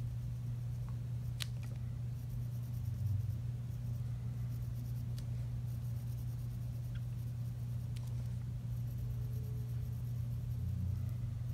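Faint scratching of a pencil lightly shading on paper, with a few faint clicks, over a steady low hum.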